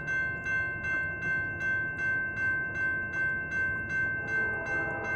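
Railroad crossing bell ringing steadily, about two and a half strikes a second, warning that a train is coming. Near the end a low, steady sound from the approaching train joins it.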